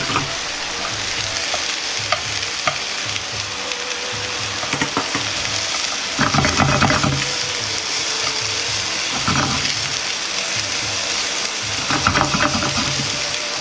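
Cabbage and garlic chives sizzling steadily in a frying pan over low gas heat while being stirred with chopsticks. Louder bursts of stirring clatter come about halfway through, briefly a little later, and again near the end.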